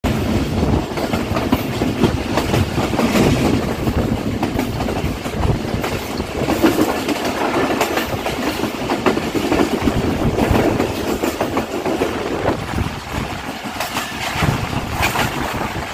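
Passenger train running at speed, heard from the side of one of its coaches: a steady rumble of wheels on rail with irregular clattering clicks over the rail joints.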